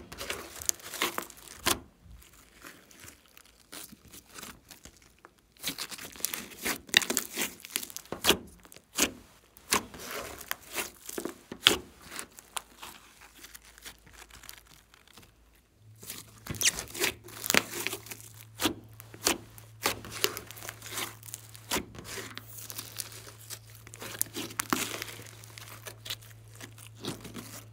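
Thick glossy slime being squeezed, folded and stretched by hand, giving runs of sticky crackles and sharp pops with a short lull about a quarter of the way in.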